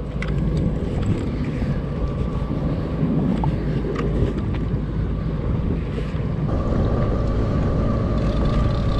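Wind buffeting the microphone and choppy sea water slapping around a jet ski, a steady low rush. A faint steady hum joins in about two-thirds of the way through.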